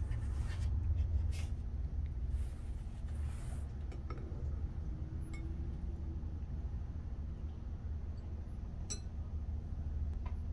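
Paddles scraping ice cream across the pan of a Chef'N Sweet Spot ice cream maker, with several scrapes in the first few seconds, then a light clink near the end. A steady low hum runs underneath.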